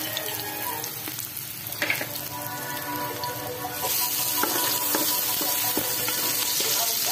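Sliced garlic, ginger and onion sizzling in hot oil in an aluminium stockpot, with a wooden spatula stirring and clicking against the pot. The sizzle grows louder about four seconds in.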